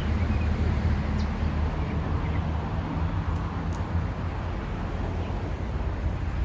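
Steady low hum of a crowded honeybee colony around its opened hive.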